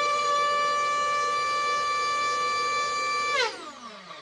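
Turbocharger compressor wheel spun by an RC electric ducted-fan motor, giving a loud, steady high-pitched whine. About three and a half seconds in, the motor is throttled off and the whine falls in pitch as the wheel spins down. The builder reads the run as not sounding great, with vibration and something loose inside.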